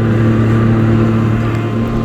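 Jet ski engine running steadily under way, a constant drone over a rush of noise.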